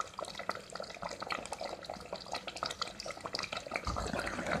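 Mutton kuruma curry bubbling in a pot on the gas flame, a steady run of small irregular pops. About four seconds in, a ladle stirs through the gravy with a low swell of sloshing.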